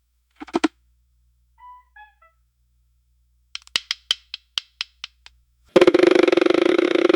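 Metal filing cabinet drawer: latch and handle clicks, a few short squeaky metal notes, then the drawer sliding open with a loud buzzing rattle that starts near the end.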